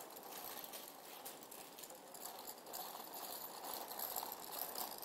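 The small plastic wheels of a child's three-wheeled kick scooter rattling and clicking as they roll over asphalt. It grows a little louder toward the end as the scooter comes closer.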